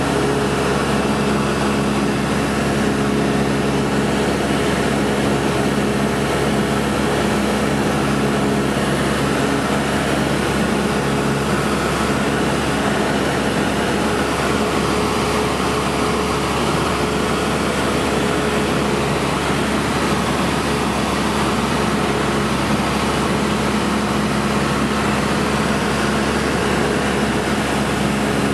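Cessna 172 Skyhawk II's piston engine and propeller droning steadily in flight, heard inside the cabin. A constant pitched hum sits over a wide rush of air noise, the hum easing a little midway and coming back.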